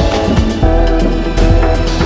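Background music: held pitched notes over a deep bass, with an occasional beat.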